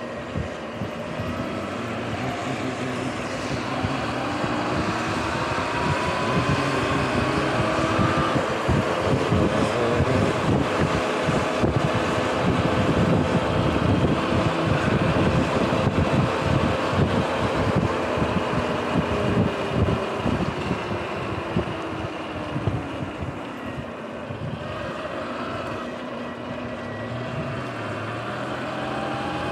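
Sur-Ron X electric dirt bike's motor whine rising in pitch as it picks up speed, holding, dropping as it slows about two-thirds of the way in, then rising again near the end. Wind buffets the microphone, and tyres hiss on the wet pavement.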